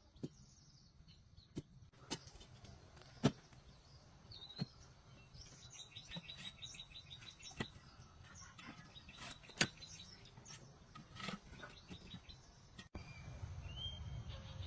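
Small birds chirping, with two short rapid trills, among scattered sharp knocks and clicks.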